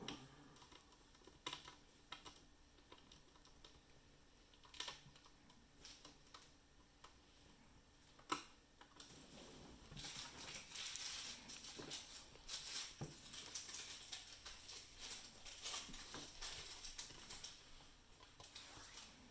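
Light clicks and taps of hands working on a laptop: a few separate clicks, then a longer stretch of rapid clicking and rustle from about halfway through.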